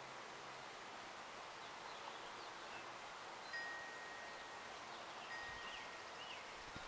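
Quiet outdoor background with two faint, high ringing tones, each held about a second, starting about three and a half and five seconds in, and faint distant bird chirps.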